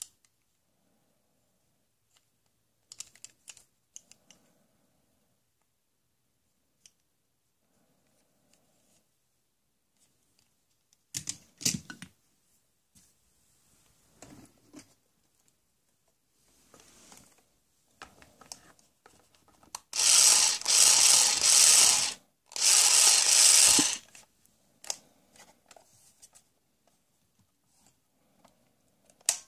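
Plastic toy tools clicking and clattering as they are handled, then two loud rattling bursts of about two seconds each, two-thirds of the way in, from a Black & Decker toy cordless drill being run.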